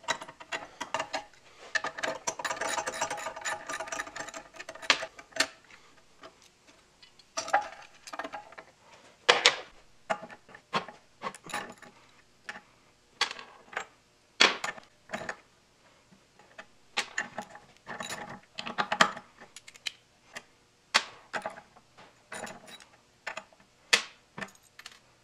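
Hand tools and metal engine parts being worked: a run of rapid ratcheting clicks about two seconds in, then scattered metallic clicks and knocks as the cylinder head's bolts and spark plug come out.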